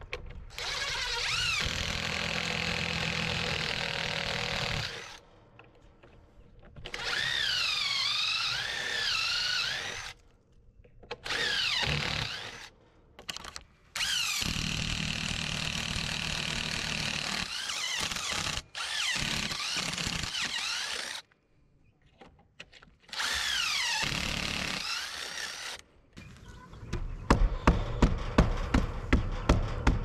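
Power drill running in bursts of a few seconds each, its pitch rising and falling as the trigger is worked, typical of driving screws in a wooden frame build. Near the end comes a fast run of sharp knocks.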